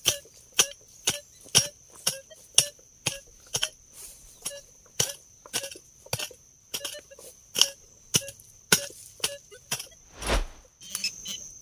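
A hand digging tool chopping into soil to dig out a metal-detector target, striking steadily about twice a second, with a longer scraping scoop near the end.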